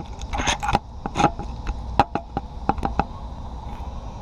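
Handling noise from a hand-held GoPro: about ten irregular sharp clicks and knocks in the first three seconds, over a low steady rumble that goes on after them.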